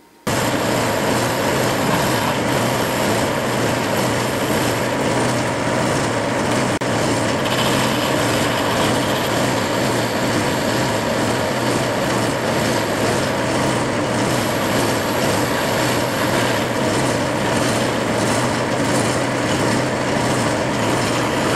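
Metal lathe running steadily, with a carbide-insert tool taking a facing cut to trim the end of the drawbar tube that carries the aluminium handwheel.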